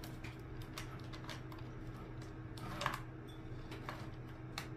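Faint scattered clicks and light taps of small parts and a screwdriver being handled while a Bluetooth speaker is taken apart, one tap a little louder near the three-second mark, over a steady low hum.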